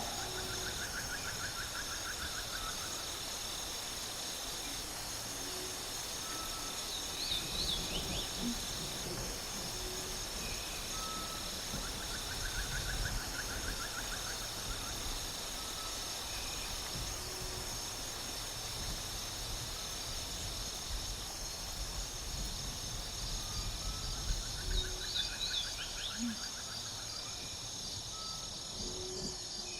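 Forest ambience soundscape: a steady high insect drone, with a trilled call that comes back about every eleven seconds and a few short chirps, over a low rumble.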